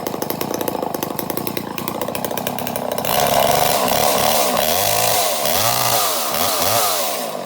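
Homelite Super XL Automatic chainsaw's two-stroke engine running steadily, then about three seconds in revved hard, its pitch rising and falling several times before it eases back near the end.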